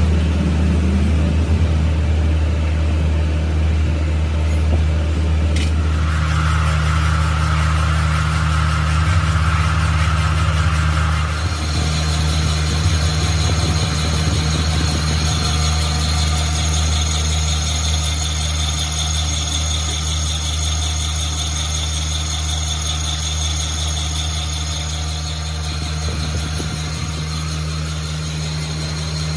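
A motor running steadily with a deep hum. About six seconds in a higher steady tone joins, and about eleven seconds in a thin high whine sets in.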